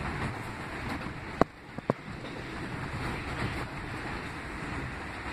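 R179 subway car running on elevated track, heard from inside: a steady rumble and hiss of wheels on rail. Two sharp clacks come about a second and a half in, half a second apart.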